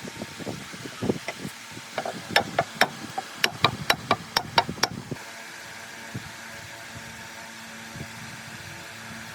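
Metal parts clinking and tapping in a quick series of sharp, ringing knocks, then an abrupt change to a steady machine hum, as from the restored drill press's electric motor running.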